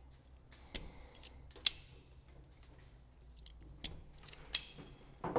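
Hand wire tool snipping and clicking on electrical wire ends while the fuel cell is wired up: a handful of sharp, unevenly spaced snips and clicks, the loudest about a third of the way in.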